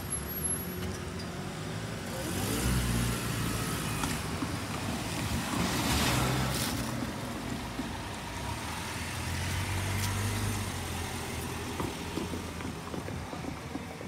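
Motor vehicles passing, their engine and tyre noise swelling and fading three times, about three, six and ten seconds in.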